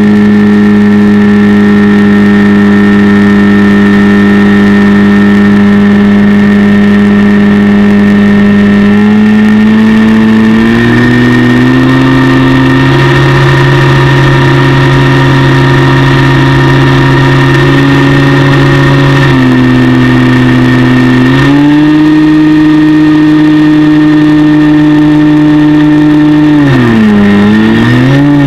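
FPV RC plane's motor and propeller running close to the onboard microphone: a loud, steady pitched drone. Its pitch steps up about a third of the way in, drops and climbs again about two-thirds through, and dips sharply then recovers near the end as the throttle changes.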